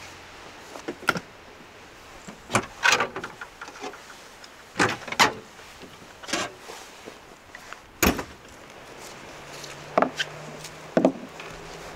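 Scattered sharp knocks and clunks, about nine at uneven intervals, over a steady background hiss.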